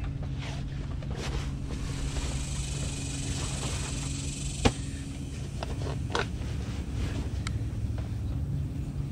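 Handling noise as a bulky kayak backpack is set onto a folding beach cart: rustling, with a few sharp knocks and clicks, the loudest about halfway through. Under it runs a steady low mechanical hum.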